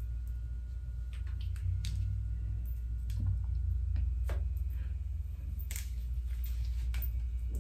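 Soft squishing and scattered short clicks from a small bottle of wig glue being squeezed and fingers with long nails pressing along a wig cap, over a steady low hum.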